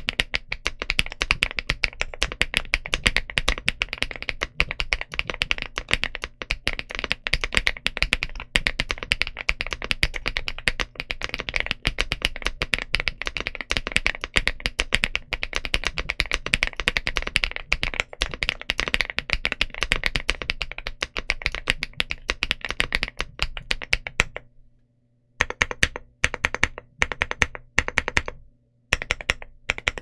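Rainy75 mechanical keyboard with KiiBOOM Topaz linear switches and ABS Cherry-profile keycaps, typed on quickly and steadily. Near the end the typing stops for a moment, then comes back in short bursts of keystrokes with brief gaps between them.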